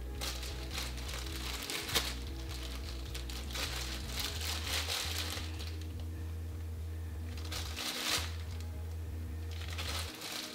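Background music with a steady bass line, over two stretches of crinkly rustling and handling noise as raw pork slices are laid by hand into a plastic bowl of marinade, with a sharp click about two seconds in.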